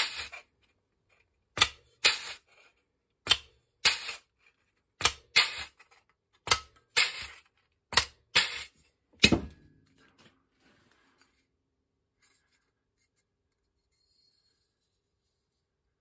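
Hand-held air punch punching holes along a flat steel strip: sharp metallic cracks in pairs, about one pair every second and a half, then it stops about ten seconds in.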